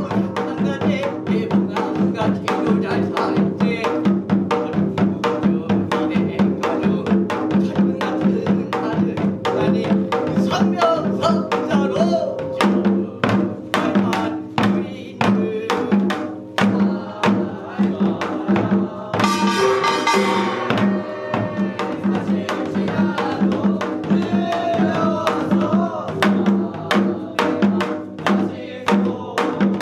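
Binari, a Korean blessing chant: a voice chanting over a fast, steady pungmul drum rhythm on hourglass drum (janggu) and barrel drum (buk), with a brighter, clashing passage about twenty seconds in.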